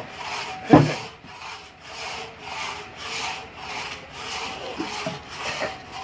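Sawmill band saw running with a rasping sound that pulses about two to three times a second. About a second in there is one brief loud sound that falls in pitch.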